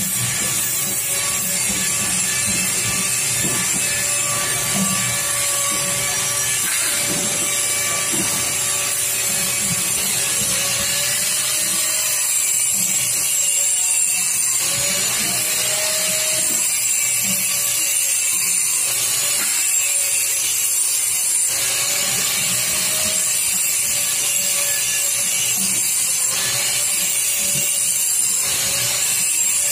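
Steady metal-workshop machinery noise: a continuous hum and hiss from running machines, with a faint wavering tone and scattered light knocks of sheet-metal work.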